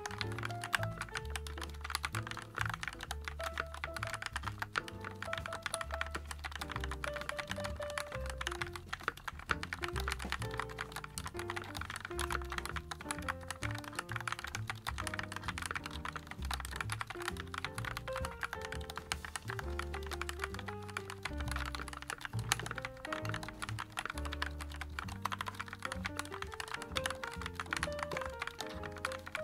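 Continuous fast typing on a JAMESDONKEY RS6 96-key mechanical keyboard with Gateron G Pro switches: a dense, irregular patter of key clacks, over background music with a steady bass line.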